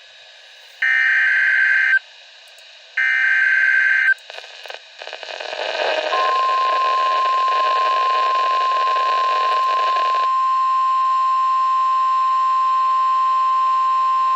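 Weather radio emergency alert: two one-second bursts of the SAME digital header's shrill data tones, then a stretch of radio hiss, then from about six seconds in the single steady 1050 Hz NOAA Weather Radio warning alarm tone, which announces a warning about to be read.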